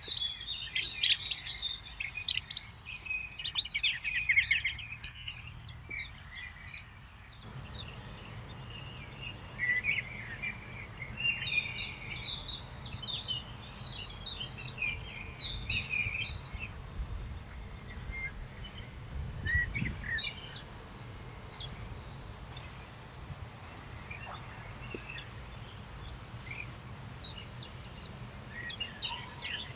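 Several birds singing and calling together, a dense mix of short chirps and trills. About seven seconds in a low steady rumble joins underneath.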